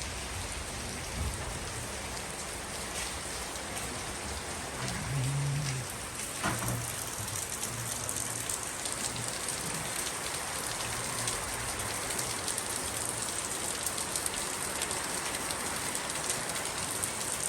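Steady rain falling, an even hiss of drops on surfaces that goes on without a break.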